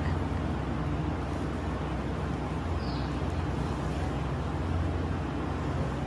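A steady low hum, as from a running machine, with a faint hiss over it.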